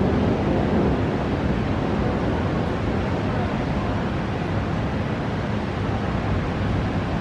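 Steady rushing noise of thunderstorm wind, with wind buffeting the microphone; no thunderclap.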